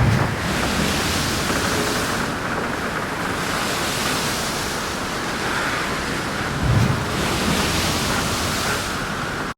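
Wind buffeting the microphone over a steady rush of sea and waves, with two louder low gusts, one at the start and one about seven seconds in.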